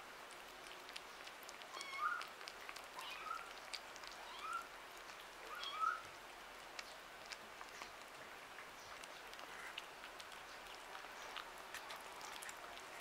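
A kitten gives four short, high mews, each rising in pitch, in the first half. Faint wet clicks and smacks of kittens chewing wet cat food run throughout.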